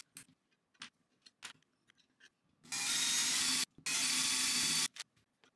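Cordless drill running in two bursts of about a second each, back to back past the middle, worked against a key switch that is stuck fast; a few light clicks and knocks of handling come before.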